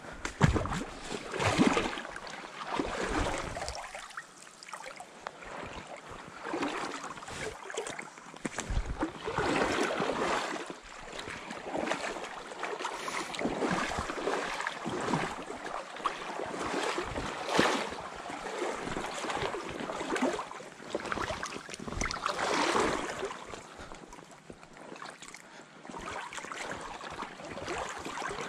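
Wading through a shallow creek: water sloshing and splashing around the legs in irregular surges every second or two, over the steady rush of the stream.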